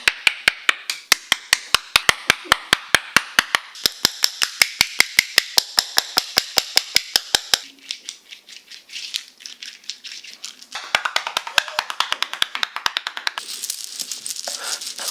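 Rhythmic percussive massage strikes on the back, sharp and evenly paced at about five a second, breaking off about seven and a half seconds in. Softer, irregular taps follow, then a fast, dense rattling patter of taps from about eleven seconds in.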